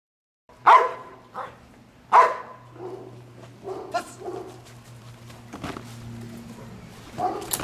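A trained protection dog barking: two loud barks about a second and a half apart near the start, then quieter barks.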